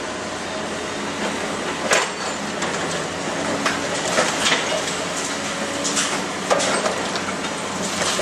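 Caterpillar 320D excavator with a long-reach demolition front running steadily as its crusher jaws bite into a concrete wall, with sharp cracks and clattering of breaking concrete and falling debris every second or so, the loudest about two seconds in.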